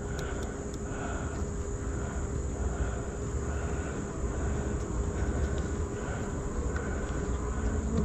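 Honeybees humming steadily around an open hive and a bee-covered frame of comb, over a low rumble.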